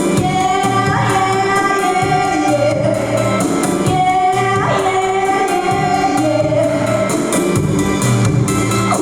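A female singer holding long sung notes of a pop-rock song over band accompaniment with a steady drum beat.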